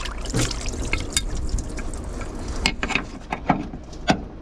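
Irregular sharp clicks and knocks of hand tools and metal parts being handled during engine work, over a steady low hum.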